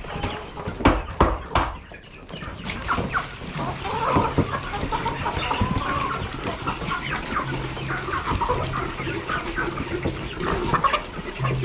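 A flock of chickens clucking and squabbling, many short calls overlapping. A few sharp knocks come in the first two seconds.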